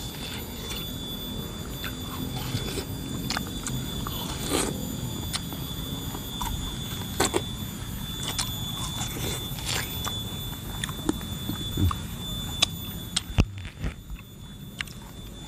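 Watermelon being bitten and chewed: scattered short wet crunches and slurps from juicy slices eaten off the rind.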